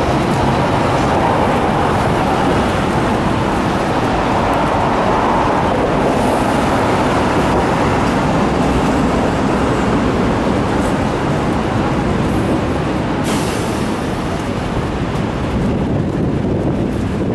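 Hong Kong double-decker tram in motion, heard from on board: the steady running noise of its wheels on the street rails and its motor, with one brief click about thirteen seconds in.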